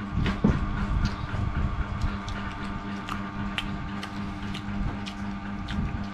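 Scattered light clicks and taps of a metal spoon against a ceramic bowl and table as people eat, over a steady low hum. A louder knock comes about half a second in.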